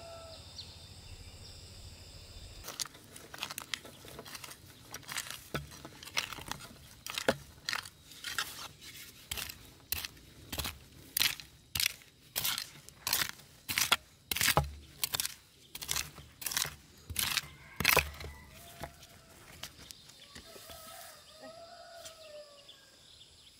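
Earth being tamped down around the base of a freshly set wooden pole with long wooden sticks: a steady run of crunching thuds, about two a second, for some fifteen seconds.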